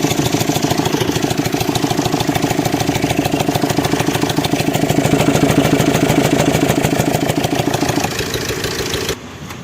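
Suzuki Dzire DDiS diesel engine idling, heard through its opened air filter, with a rapid, even tapping that the mechanic suspects comes from a stretched timing chain or a faulty bullet rocker. The sound cuts off abruptly near the end.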